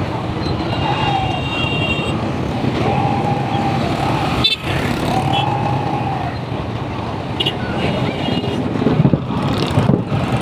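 Small motorcycle engine running steadily under way, amid dense street traffic of other motorbikes and an auto-rickshaw.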